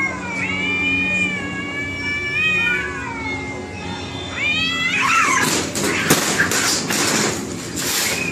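Two cats yowling at each other in long, wavering, overlapping calls. About four and a half seconds in, the calls break into a loud burst of harsh, noisy screeching and clatter.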